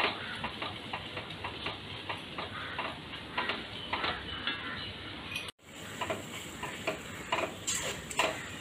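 Wooden spatula scraping and knocking against a pot as onions, tomatoes, green chillies and ginger-garlic paste are stirred while frying, a few short strokes a second over a steady sizzle. The sound drops out briefly about five and a half seconds in.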